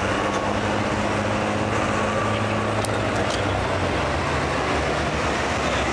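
Diesel engine of a John Deere Pro Stock pulling tractor running steadily at low speed, stationary at the start line before its pull; the pitch settles slightly lower about halfway through.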